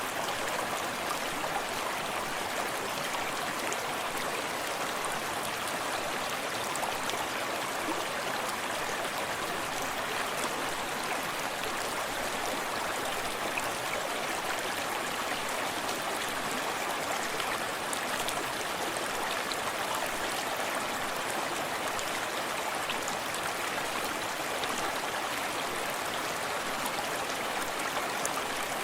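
Forest stream running steadily over rocks, a continuous rush of water with small splashes and trickles.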